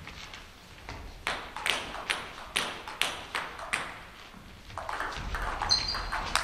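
Table tennis ball bouncing in about seven light, quick clicks, two or three a second. Near the end, shoes squeak briefly on the sports hall floor.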